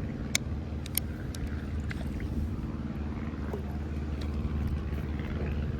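A boat motor runs with a steady hum. A few sharp clicks come in the first second or so.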